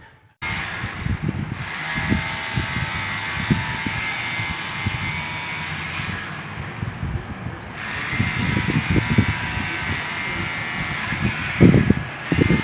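Electric demolition hammer running, rapidly hammering into concrete over a steady motor whine, after a short gap at the start. The knocking grows heavier in a couple of stretches, most of all near the end.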